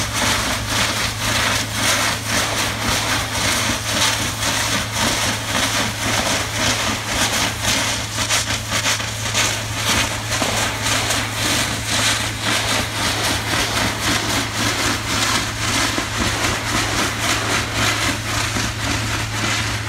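Hydraulic breaker on a demolition machine hammering concrete off the edge of a road bridge deck: a rapid, continuous pounding over a steady engine hum, a terrible racket.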